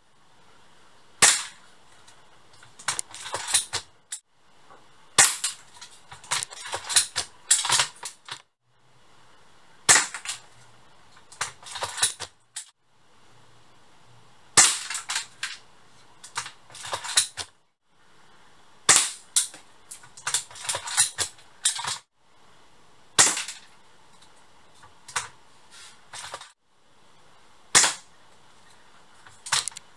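Stock Tokyo Marui L96 AWS, a spring-powered bolt-action airsoft rifle, firing BBs over a chronograph: seven sharp shots about every four to five seconds, each followed by a quick run of clicks and clacks as the bolt is worked for the next shot.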